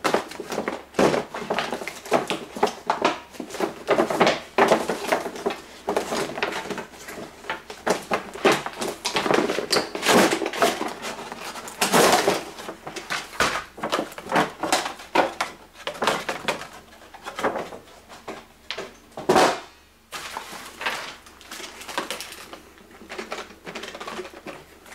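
Cardboard and plastic toy packaging being opened and handled: irregular rustling, scraping and knocking, with two louder scrapes about halfway through and again near three-quarters of the way.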